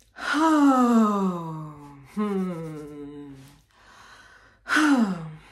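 A woman's voice letting out three voiced sighs, each sliding down in pitch. The first two are long, and the third is shorter, near the end. A breath is drawn in between the second and the third.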